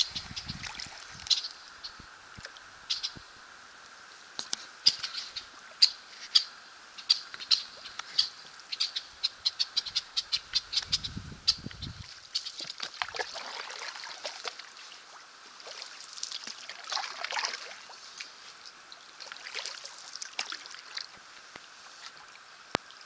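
Red-winged blackbirds calling in a cattail marsh: many short, sharp chip notes, a quick run of them around the middle, then several longer falling calls.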